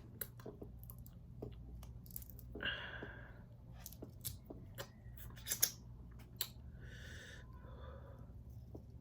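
Close-up eating sounds: snow crab and seafood being chewed, with scattered sharp clicks and cracks from mouth and shell. There are two short hissing breaths, about three and seven seconds in, and a louder crack just past five and a half seconds.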